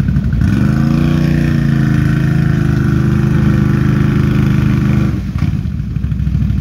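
Can-Am Renegade ATV's V-twin engine revved hard about half a second in and held high for about four and a half seconds, then dropped back to a low idle. It is pulling its wheels through deep, greasy clay mud.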